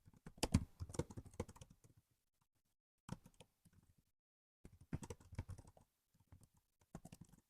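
Laptop keyboard being typed on in four quick bursts of key clicks with short pauses between them.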